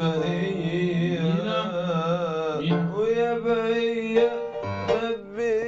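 A man singing a slow Arabic-style melody unaccompanied, with long held notes that waver in pitch.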